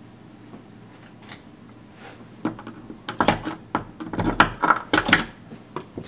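Off-camera tools being handled, most likely the drill being readied: after a couple of quiet seconds comes a quick, irregular run of sharp clicks and clatters lasting about three seconds.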